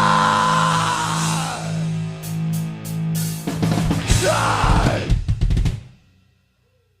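Thrash metal band ending a song: a held guitar chord rings and fades while cymbals are struck, then a fast flurry of drum hits with the band, stopping abruptly about six seconds in.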